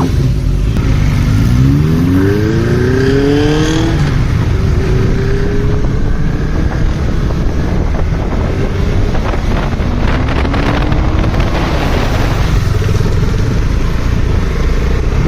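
Motorcycle engine pulling hard while riding, its pitch rising steeply about a second in and climbing again about ten seconds in, over steady wind rush on the microphone.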